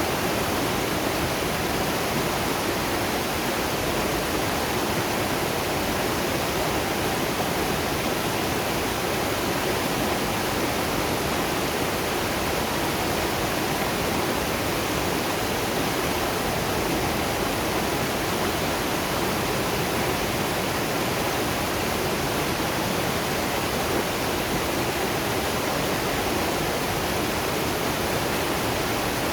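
Waterfall and river water rushing in a steady, unchanging roar of noise.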